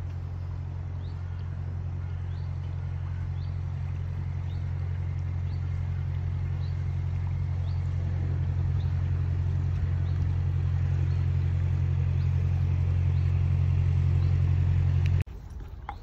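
Narrowboat's diesel engine running with a steady low hum, growing louder as the boat draws near, then cutting off suddenly near the end.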